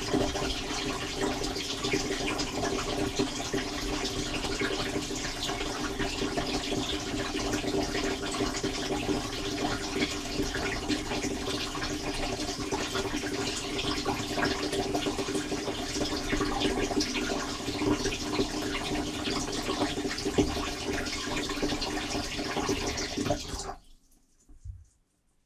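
Dishwasher wash cycle heard from inside the tub: water spraying steadily against the racks and walls over the steady hum of the wash pump. Near the end the pump and spray cut off suddenly, followed by a faint thump.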